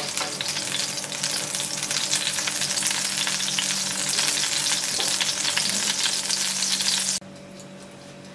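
Melted ghee (clarified butter) sizzling and crackling in a hot pan while a wooden spoon skims and stirs it. About seven seconds in the sizzle drops off abruptly, leaving only a faint steady hum.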